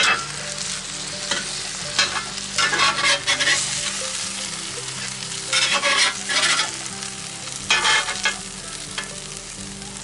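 Egg and diced sausage frying on a cast iron griddle with a steady sizzle, while a metal spatula scrapes across the iron in several short bouts of strokes, pushing the sausage and mushrooms into the egg.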